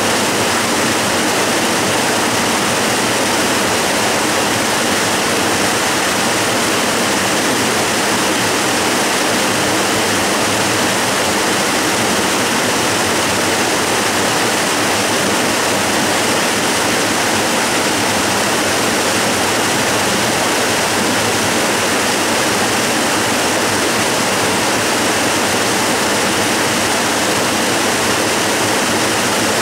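Waterfall, a steady unbroken rush of falling water with no pauses or changes.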